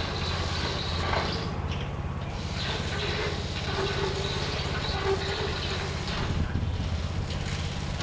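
Electric motors of a telemax tracked robot running steadily, a low hum with a thin high whine, as it drives and works its manipulator arm on a wooden beam.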